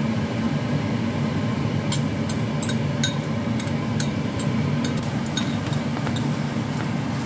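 A steady low mechanical hum, like a kitchen fan, with a few light clicks and clinks as glass noodles are pressed into a clay pot and a glass lid is handled.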